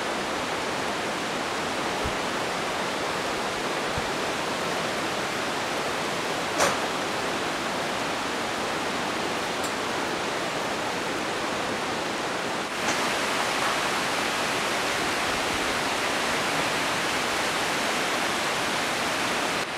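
Steady rushing of a rocky mountain river, with one sharp knock about a third of the way in. The rushing steps up slightly louder and brighter about two-thirds through.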